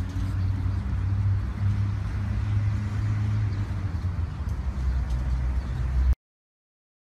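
Steady low outdoor rumble, the kind of dull roar of city traffic or wind on a phone microphone, that cuts off to dead silence about six seconds in.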